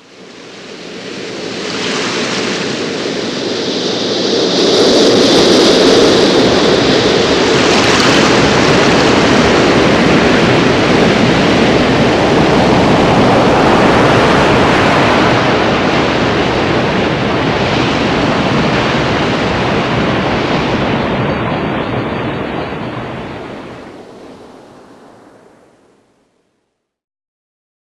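Heavy ocean surf crashing with wind, a storm-sea sound effect: it swells in over the first few seconds, stays loud with a few surges, then fades out a couple of seconds before the end.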